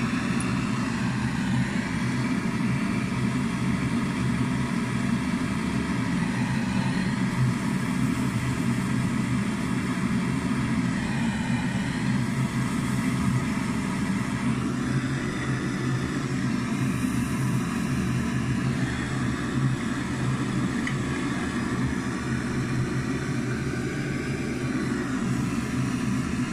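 Jeweller's hand-held gas torch burning steadily, a continuous low rushing sound as its flame heats metal on a soldering block.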